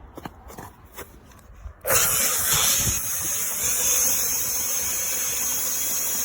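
Makita DHP458Z 18 V cordless combi hammer drill: a few light clicks, then the drill starts about two seconds in and runs loud and steady for about four seconds before stopping abruptly.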